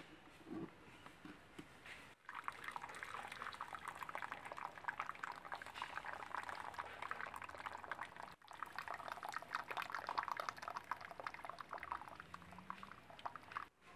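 Turmeric-yellow cooking water being poured off boiled cassava from a tilted clay pot, through the gap under its clay lid, and splashing into a clay bowl. The stream starts about two seconds in, with a few light knocks before it, and cuts out briefly once near the middle. This is the draining stage of boiling the cassava.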